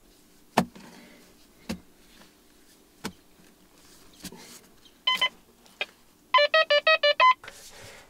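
A few sharp knocks of a shovel digging into soil, then a metal detector beeping: one beep about five seconds in and a quick run of about eight beeps near the end, signalling buried metal in the hole.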